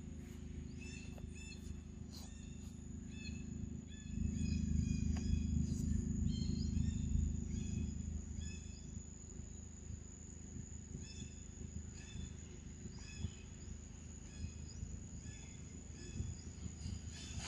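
Outdoor ambience: a steady high drone with many short, high chirps repeating through it, over a low rumble that swells from about four to eight seconds in.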